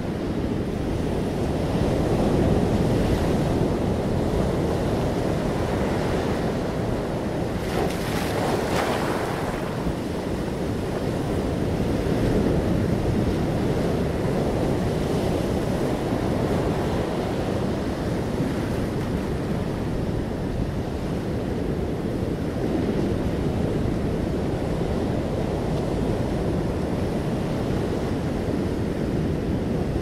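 Ocean surf breaking and washing up over sand and around rocks, a continuous rushing wash with a louder hissing surge about eight seconds in.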